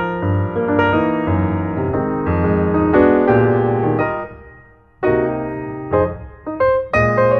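Background music played on piano: a run of plucky keyboard notes that fades briefly about two-thirds of the way through, then starts again.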